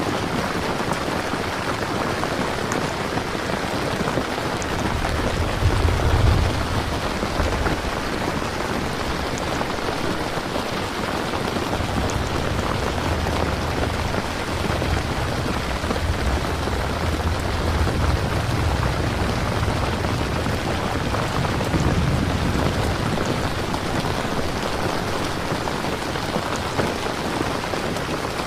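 Steady rain falling, an even rushing patter. Low rumbles of distant thunder swell about six seconds in, and again for several seconds past the middle.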